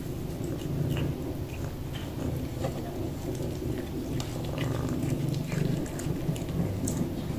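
Cat purring close by, a steady low rumble that swells and eases at a slow, uneven pace, with small crunching clicks of a cat chewing broccoli.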